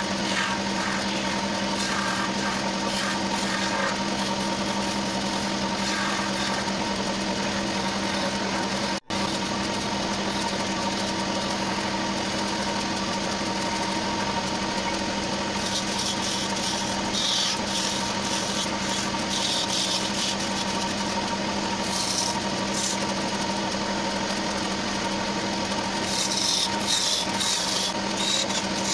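Wood lathe motor running with a steady hum while a hand-held turning gouge cuts the spinning wood blank. The scraping of the cut comes and goes and is heaviest near the end.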